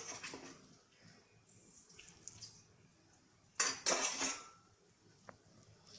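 Metal utensils clinking and scraping against cookware: a short clatter at the start, a louder run of scraping strokes a little past halfway, and a single light tick near the end.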